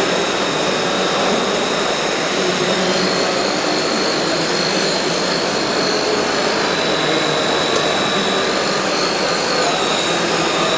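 Steady high-pitched whine of a small electric motor that steps slightly up and down in pitch a few times, over a continuous rushing noise.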